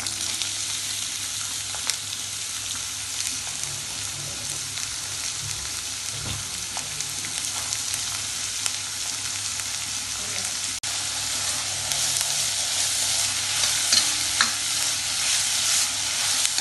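Chopped onions dropped into hot coconut oil in an iron wok, sizzling steadily as they are stirred. The sizzle starts suddenly as the onions go in and grows a little louder in the last few seconds.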